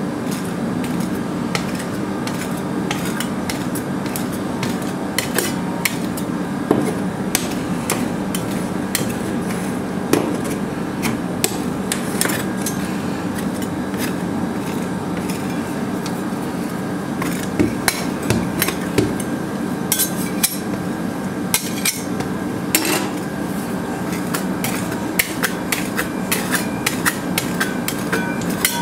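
Metal spatulas tapping and scraping on the frozen steel pan of a rolled-ice-cream cold plate, making irregular sharp clicks that come more thickly in the second half. Under them runs the steady hum of the cold plate's refrigeration unit.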